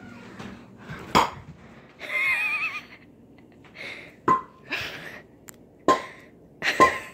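A metal frying pan striking a phone three times in the second half, each hit a sharp clank with a short metallic ring. Earlier there is a single knock and a brief wavering vocal sound.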